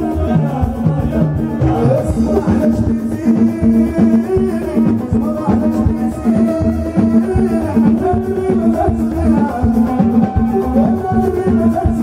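Moroccan chaabi music played live by a band: violin and keyboard over a steady, busy beat of hand-held frame drums, with singing at the microphone.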